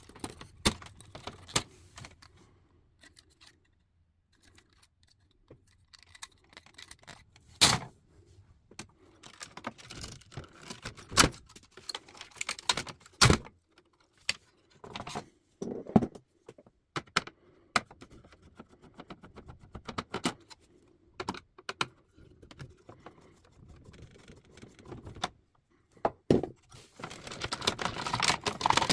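Metal parts of an old typewriter clinking and clattering as it is dismantled by hand: irregular clicks and knocks with a few louder clanks, becoming a denser rattle near the end.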